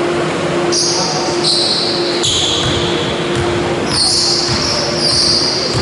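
Basketball bounced a few times on a sports-hall floor, the bounces echoing in the hall over a steady hum.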